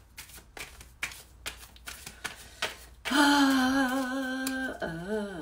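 A tarot deck being shuffled by hand, a quick run of card clicks and flicks for about three seconds. Then a woman's voice holds one long wavering note, dipping near the end.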